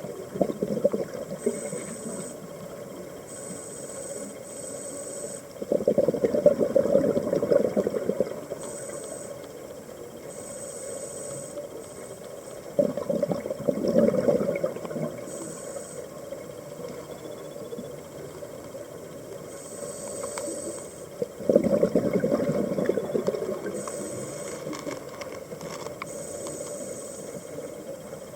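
Scuba regulator breathing heard underwater: three long, rumbling bursts of exhaled bubbles about eight seconds apart, each lasting two to three seconds, over a steady underwater hiss.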